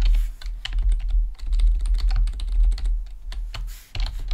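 Computer keyboard typing: irregular quick key clicks with short pauses, over a low rumble.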